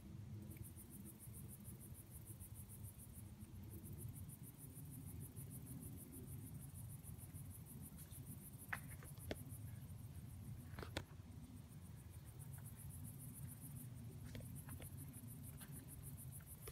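Faint chorus of insects chirping in a fast, even, high-pitched pulsing trill that pauses briefly now and then, over a low rumble. A few sharp clicks or snaps stand out near the middle.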